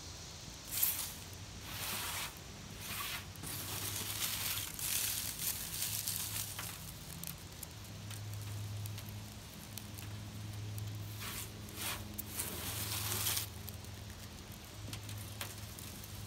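Dry leaves rustling and crinkling in several irregular bursts as handfuls are crumpled and fed into a burning tin-can stove. A steady low hum runs underneath.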